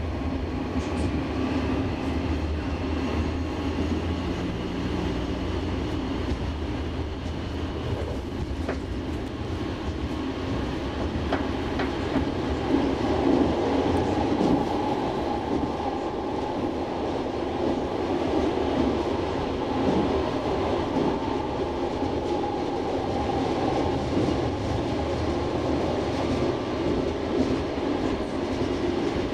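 Stockholm A32 light-rail tram running along the track, heard from inside the driver's cab: a steady rumble of wheels on rail with occasional clicks. A faint motor whine rises in pitch over the first few seconds.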